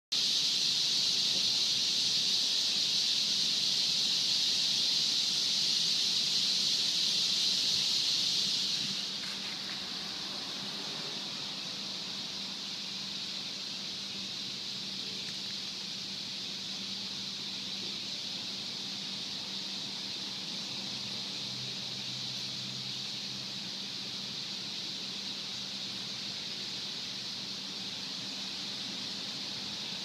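A large flock of birds gathering in a tree to roost, hundreds of high calls merging into one dense, continuous chatter. It is loudest for the first nine seconds, then drops to a steadier, quieter level.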